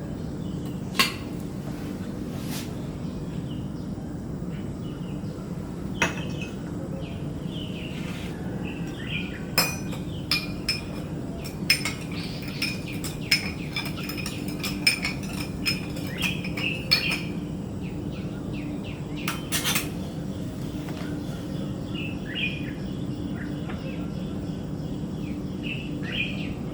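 Small birds chirping and twittering over a steady low hum, with scattered sharp clinks of cutlery and dishes, a quick run of them near the middle.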